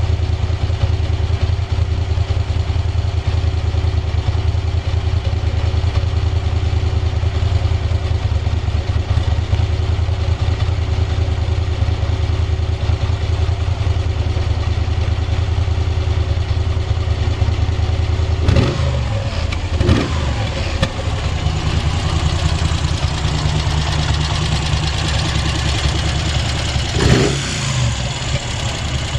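Moto Guzzi Breva 1100's air-cooled V-twin idling steadily, with brief throttle blips about 18 and 20 seconds in and again near the end. The idle is stable, with no abnormal noises.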